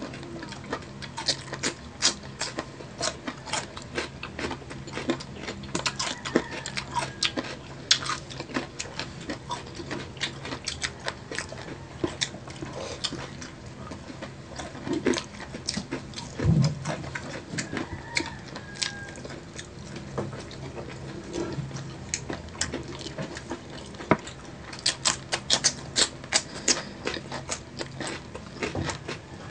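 Close-miked eating: chewing and crunching of fried chicken wings, with many small crisp clicks and wet mouth smacks. A steady low hum sits underneath.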